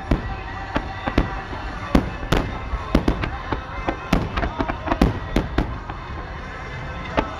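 Starmine fireworks barrage: shells launching and bursting in quick succession, sharp booms at about two or three a second, irregularly spaced and overlapping, over a steady rumble.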